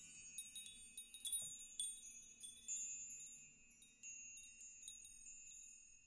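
Faint high-pitched chimes tinkling: scattered struck notes that each ring on, fading out near the end.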